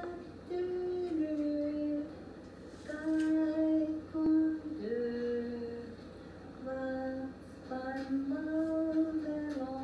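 A woman singing a slow Finnish song unaccompanied, in phrases of long held notes with short breaths between them.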